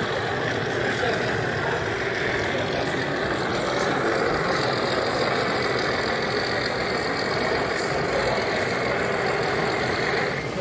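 Diesel engine sound from a sound-fitted model locomotive, running steadily at a low, even note.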